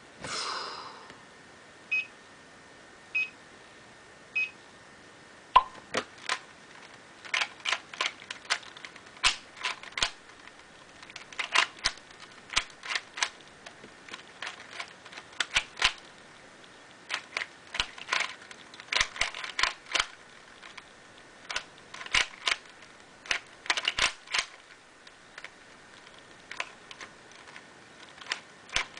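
A dollar-store 3x3 puzzle cube, lubricated with silicone spray, being turned fast in a speed solve: quick, irregular clicks of plastic layers snapping round, starting about five seconds in. Before that, three short electronic beeps about a second apart.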